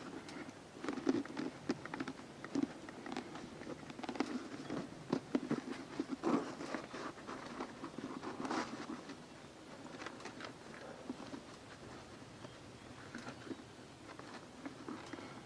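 Cloth rubbing resin polish over a Shoei X11 motorcycle helmet's painted shell: irregular scuffing, wiping strokes with small clicks and taps as the helmet is handled.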